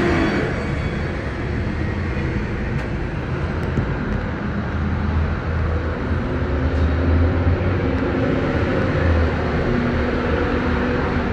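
Steady low rumble and rushing air noise inside a moving Disney Skyliner gondola cabin as it travels along its cable.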